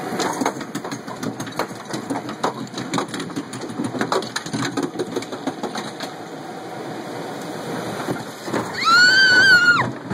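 Log-flume boat clattering and knocking along its trough. Near the end a rider screams, one high cry of about a second, as the boat goes into the drop.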